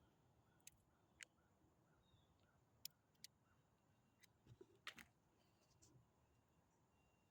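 Near silence, broken by a few faint, scattered clicks and light taps.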